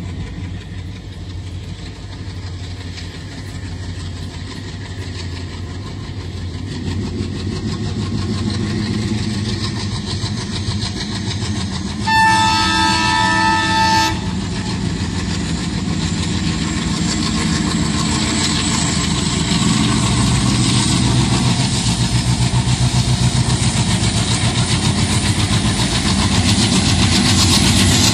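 Twin ALCO diesel locomotives hauling a passenger train, their engine rumble growing louder as the train approaches. About halfway through, the locomotive horn sounds one blast of about two seconds. In the last third, a fast rhythmic clatter of wheels over rail joints comes in as the train draws level.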